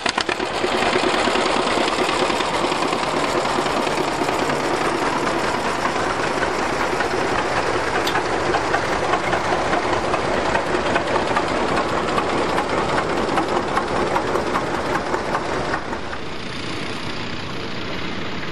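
John Deere two-cylinder tractor engine running with its steady popping exhaust beat as the tractor drives past, dropping away about sixteen seconds in.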